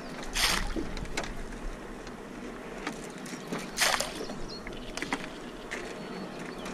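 Oars of a small rowing boat pulling through pond water: two splashing strokes about three and a half seconds apart, with faint knocks from the oars in between.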